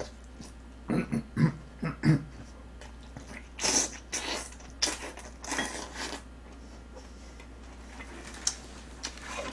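Close-miked eating sounds from a mouthful of braised short ribs and aged kimchi: slurps and wet chewing that come in short bursts, the loudest about four and six seconds in, with a sharp click near the end.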